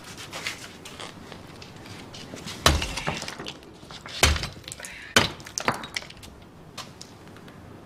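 Concrete-block wall being smashed with a long-handled tool: three heavy blows a second or so apart, with smaller knocks and blocks cracking and crumbling between them.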